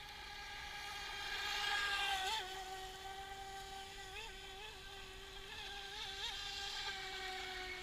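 Brushless electric motor of a radio-controlled speedboat whining steadily at speed. It is loudest about two seconds in, and its pitch jumps up briefly several times after that.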